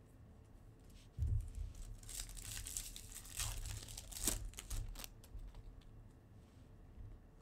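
Foil wrapper of a 2024 Topps Series One baseball card pack being torn open and crinkled by hand. The crinkling starts about a second in, is busiest in the middle and dies down near the end.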